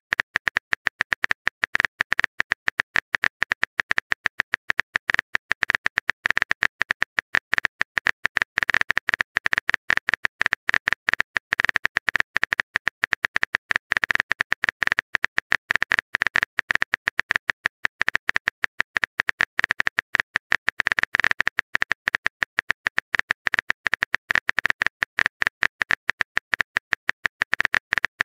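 Smartphone keyboard typing sound effect: a rapid, continuous run of short key clicks, the sound of a text message being typed out.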